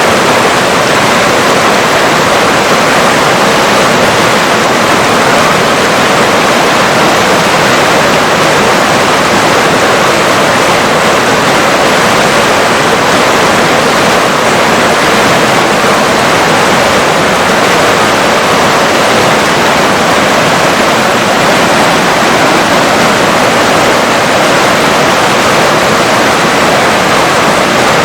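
River water rushing and splashing in a steady, dense, unbroken wash.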